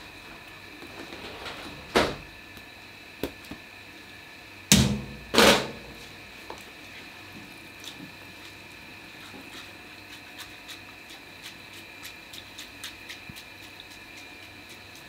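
Kitchen handling sounds. A knock about two seconds in and two louder knocks close together near five seconds, as a colander and bowls are handled, then faint soft ticks as hands mix food in a plastic tub. A steady high hum runs in the background.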